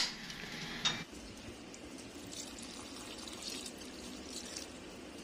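Water trickling faintly as it is poured from a steel mug into a plant pot of wet soil, after a short click about a second in.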